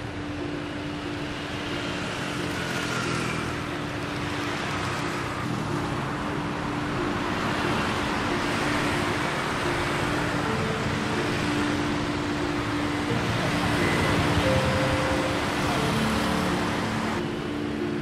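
City road traffic, mostly motorbikes and scooters, passing on a bridge roadway, rising and fading in several slow swells over a steady low hum.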